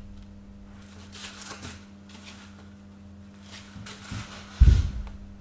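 A rope-wrapped cardboard scratching-post tube being handled: soft scattered rustling and scraping, then a single dull thump near the end, over a steady low hum.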